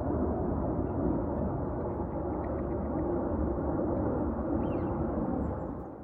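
Steady low rumbling background noise with no clear rhythm, and a faint high bird call near the end.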